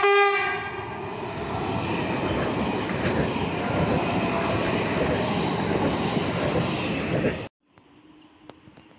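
Electric multiple unit passing close at speed: a horn note ends just after the start, then a loud, steady rush and rumble of wheels on rails that cuts off abruptly about seven and a half seconds in.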